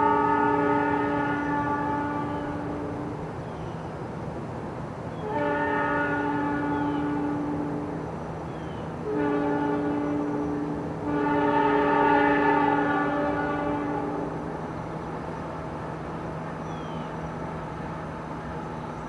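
Freight locomotive's multi-note air horn sounding long, long, short, long, the standard signal for a grade crossing, with the first long blast already under way. After the last blast the locomotives' diesel engines carry on with a steady low drone.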